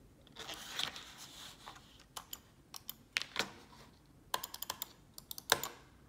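Clicking of a wired USB computer mouse's buttons as it is handled and moved on a desk pad, with a soft rustle at first. The clicks come singly and scattered, with a quick run of them about four and a half seconds in.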